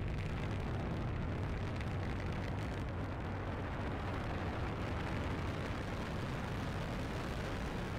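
Falcon 9 first stage, nine Merlin 1D engines, firing in ascent shortly after liftoff: a steady, deep rumble that does not change, the first stage running normally.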